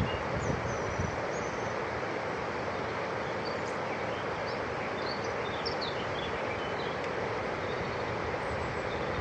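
Small birds chirping in short high calls scattered throughout, over a steady rushing background noise.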